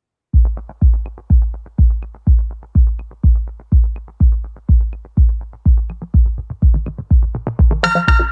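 Electronic dance music with a steady kick drum about twice a second; brighter synth and cymbal layers come in near the end.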